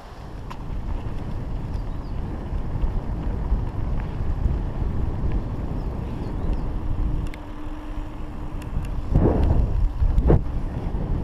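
Wind buffeting the microphone of a bicycle-mounted action camera while riding, a loud steady low rumble with a few light clicks and rattles, and two louder gusts near the end.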